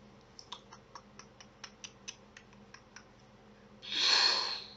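A quick run of about fifteen light clicks, four or five a second, then a loud breathy whoosh lasting under a second near the end.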